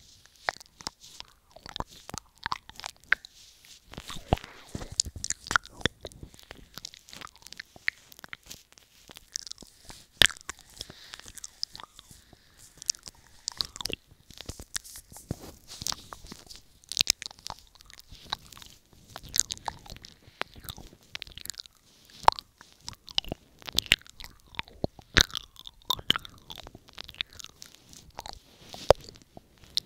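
Wet ASMR ear-eating mouth sounds made right up against a wired earphone's inline microphone: irregular lip smacks, tongue clicks and wet sucking, several a second, muffled by a hand cupped over the mouth.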